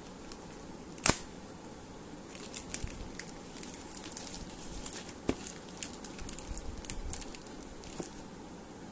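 Plastic courier mailer being cut and torn open with a serrated knife, the plastic crinkling and tearing. There is a sharp click about a second in and a run of small crackles through the middle.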